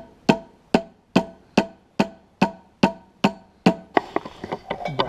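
Steady, evenly spaced hammer blows on metal, a little over two a second, each ringing briefly. After about four seconds they give way to a quicker run of lighter taps and clinks, ending in one sharp strike.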